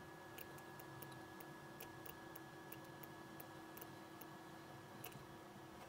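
Faint, irregular clicks of a computer mouse, roughly two a second, over a steady faint hum.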